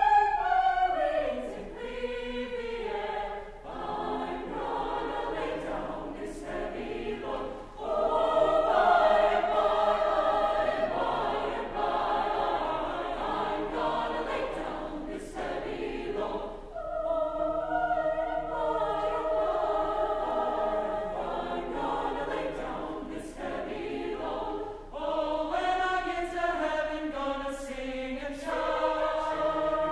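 Mixed chamber choir singing in sustained chords, phrase after phrase, with brief breaks between phrases.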